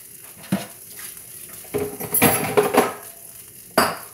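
Cooking utensils and cookware clattering against a skillet: a short knock about half a second in, a longer run of clanking and scraping around two seconds in, and a sharp clank near the end.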